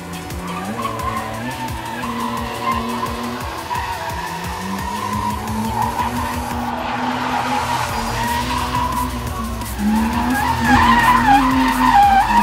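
Nissan R31 Skyline's RB30E straight-six held at high revs through a drift, with the tyres skidding and squealing on asphalt. It gets louder about ten seconds in as the car slides past close by.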